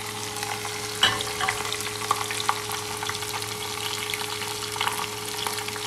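Hot oil sizzling and crackling in a small saucepan as green chili rings, ginger and a dried red chili fry in it for a tarka, the spices infusing the oil. There is a slightly louder pop about a second in.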